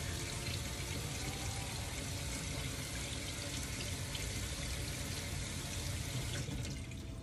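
Kitchen sink tap running steadily, water pouring into the basin; the flow drops off near the end.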